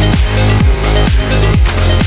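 Electronic dance music with a steady kick drum about twice a second over a sustained bass line.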